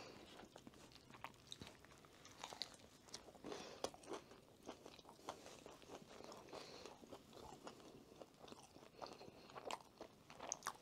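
Faint close-up eating sounds: soft crunches, chewing and crackles as a fried filet sandwich and potato wedges are handled and eaten.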